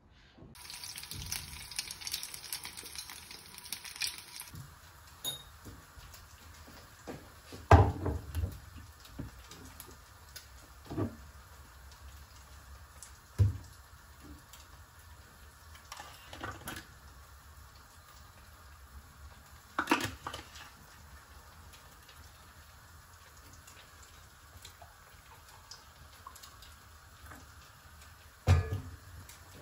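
Kitchen sounds: water running briefly near the start, then scattered knocks and clatter of dishes and cookware every few seconds.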